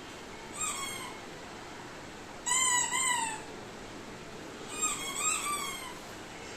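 Short high-pitched mewing cries from a pet animal: a single cry, then two louder pairs of rising-and-falling cries about two and a half and five seconds in.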